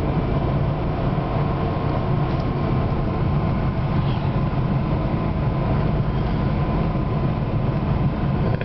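BMW E92 M3's V8 and Dinan midpipe and rear muffler exhaust heard from inside the cabin while cruising steadily at 60 mph in fourth gear, with a steady low hum under road and tyre noise.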